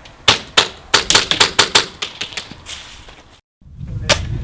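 Airsoft guns firing, a quick irregular run of sharp snapping shots packed into the first two seconds, then a few scattered shots.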